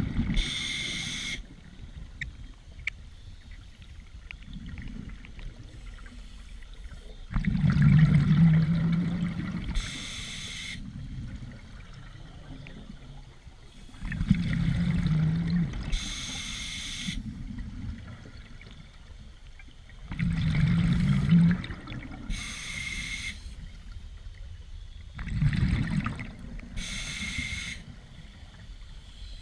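Scuba diver breathing through a regulator underwater: five breaths about six seconds apart, each a rumble of exhaled bubbles lasting about two seconds, followed at once by a short hiss of inhaling through the regulator.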